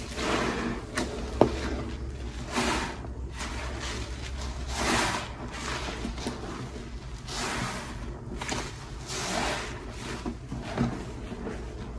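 Hands squeezing and kneading two soapy sponges in a bucket of thick dish soap lather: wet squishing and squelching in repeated strokes about every second or two, with a sharp click about a second and a half in.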